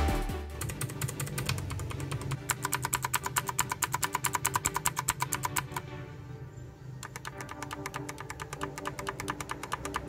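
Keys of a Royal Kludge RK100 mechanical keyboard with Outemu switches pressed in a fast, even run of clicks, about nine a second, on the blue switches, which are the clicky type. The run stops about six seconds in, then resumes more faintly after a second's pause, over quiet background music.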